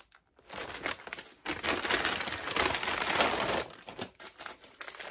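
White wrapping crinkling and rustling as it is handled and crumpled in the hands. It is loudest in the middle and thins to scattered crackles about three and a half seconds in.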